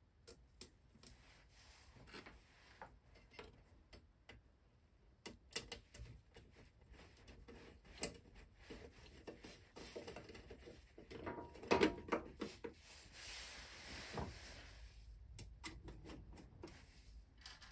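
Sheet-metal cover panel of a bench lathe being handled and fitted back into place: scattered light clicks and knocks, with a louder clatter about twelve seconds in and a few seconds of sliding noise after it.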